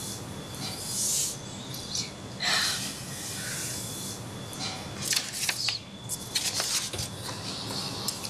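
Soft rustling and scattered sharp clicks of small objects being handled, with rustles about a second in and near the middle and quick runs of clicks in the second half.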